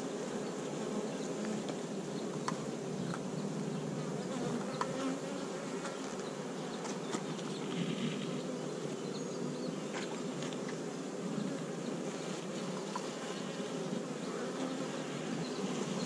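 Honey bees buzzing in a dense, steady drone from a hive frame crowded with bees held close to the microphone, with a few faint clicks scattered through.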